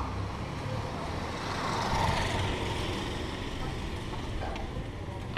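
A motor vehicle passing on the street, its noise swelling about two seconds in and then fading, over a steady low rumble.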